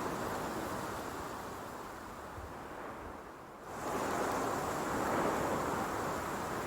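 Steady rushing noise without any pitch, like wind or surf, that dips briefly about three and a half seconds in and then comes back.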